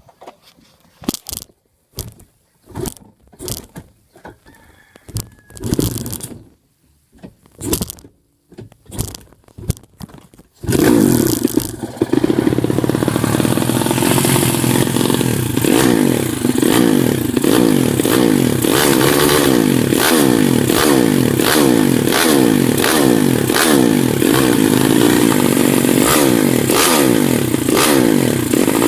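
Motorcycle engine during a tune-up: a run of short bursts about a second apart, then about ten seconds in it keeps running and is revved up and down over and over.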